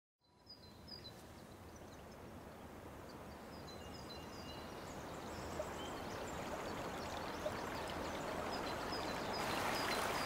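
A river rushing over stones, fading in from silence and growing steadily louder, with birds chirping now and then above it.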